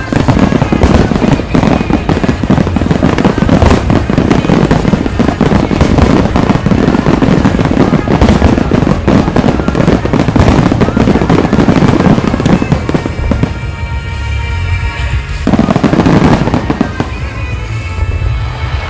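A dense barrage of aerial fireworks shells bursting and crackling, with music playing under it. About two-thirds of the way through the bursts thin out and the music comes through more clearly, then a brief flurry of bursts follows before the music takes over again near the end.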